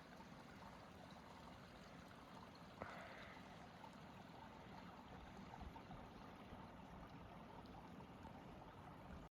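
Near silence: faint, steady outdoor background noise, with one soft click about three seconds in.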